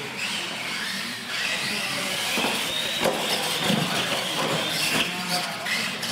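Electric motors of radio-controlled monster trucks whining, the pitch sliding up and down with the throttle, with a few sharp knocks as the trucks hit ramps and land.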